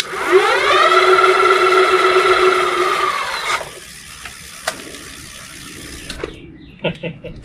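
Electric-bike hub motors whining under throttle on the newly wired two-motor system: the pitch rises over the first second, holds steady, then cuts off after about three and a half seconds, showing the motors and controllers work. A quieter whir carries on until about six seconds in, with a single click partway through.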